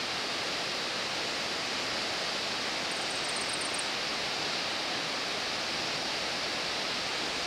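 Steady, unbroken rush of a tall waterfall, the Voile de la Mariée cascade. About three seconds in, a short high trill of quick chirps sounds briefly over it.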